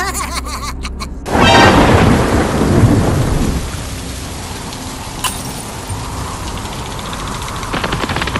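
A thunderclap breaks about a second in and rumbles for about two seconds, then heavy rain falls steadily.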